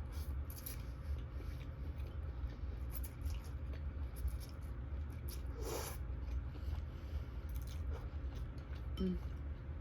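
Close-up chewing and mouth sounds of someone eating: many small wet, crackly clicks, with a louder noisy burst about six seconds in and a short low hum from the eater near the end.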